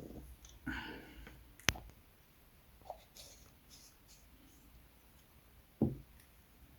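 Faint handling sounds from bench work on a model: a short rustle about a second in, then a sharp click, and a dull knock near the end.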